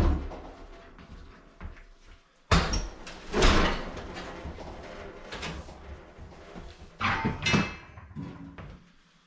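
Banging and scraping from heavy objects being handled and shifted. A sudden loud burst comes about two and a half seconds in, and another about seven seconds in, with lighter knocks in between.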